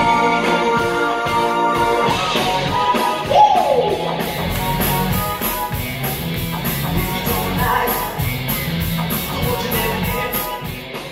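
Rock-and-roll stage music with a man singing over a band. A single note slides down in pitch about three seconds in, and a quick, steady high beat comes in at about four and a half seconds.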